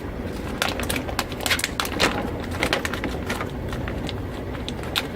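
Scattered light clicks and taps, with some plastic crinkling, as the car door's plastic moisture shield is handled and fitted back onto the inner door.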